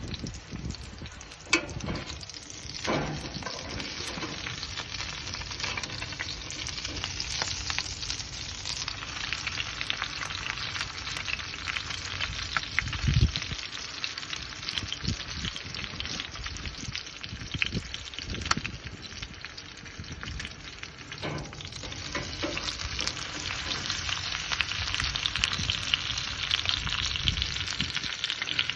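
Wagyu rib-eye steak sizzling steadily as it sears, with a few knocks now and then. The sizzle grows a little louder near the end.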